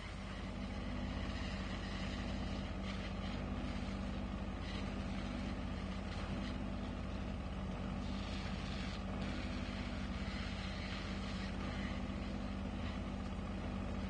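Diesel engine of a vacuum tanker truck running steadily while it pumps floodwater off the road through a hose: a low, even drone with a steady hum.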